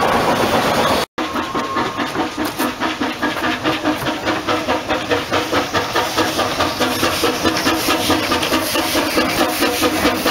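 Narrow-gauge steam locomotive moving slowly past. Its exhaust beats about three times a second over a steady hiss of steam escaping at the cylinders. The sound begins after a brief gap about a second in.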